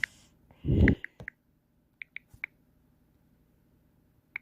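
Several short, sharp clicks or taps scattered irregularly, with a low dull thump a little under a second in.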